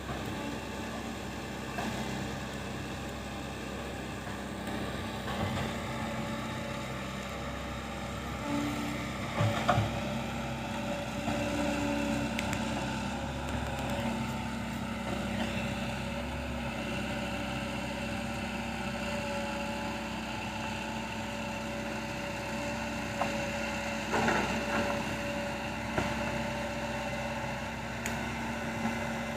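Heavy excavator's diesel engine running steadily while it works, with a few short clanks and knocks, the loudest about ten seconds in and again near twenty-four seconds.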